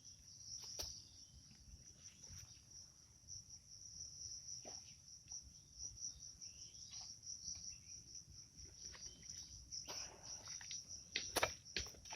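Faint, steady high-pitched chirring of crickets. Over it come scattered light knocks and rustles, which become more frequent and louder near the end.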